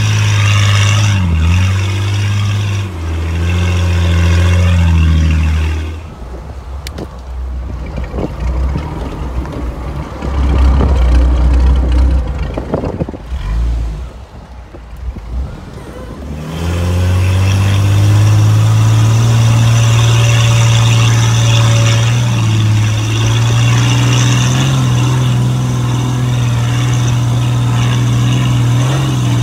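4x4 Jeep engine pulling steadily under load as it crawls an off-road trail. A quieter stretch in the middle brings low rumbling and scattered knocks, then the engine note swells about sixteen seconds in and holds steady as it climbs a dirt hill.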